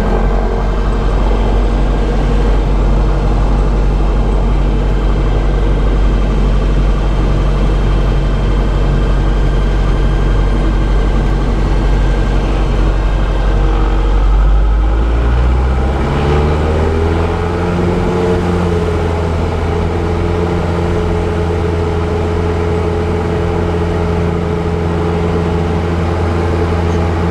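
Diamond DA40 light aircraft's piston engine and propeller running steadily, heard inside the cabin; about sixteen seconds in the engine note rises in pitch and then holds at the higher note.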